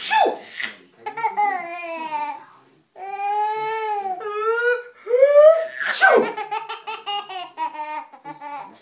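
A sneeze, then a baby laughing in long giggling runs. A second sneeze about six seconds in sets off another round of giggles.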